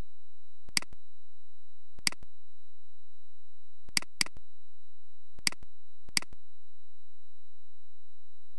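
Computer mouse button clicks, six in all, including a quick double-click about four seconds in, over a steady high-pitched tone.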